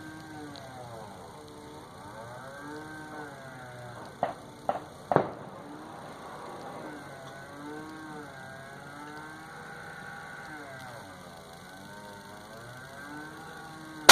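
Three sharp metallic clicks about half a second apart from the bolt of a Savage Axis II bolt-action rifle being worked to chamber a round, over a faint wavering drone in the background.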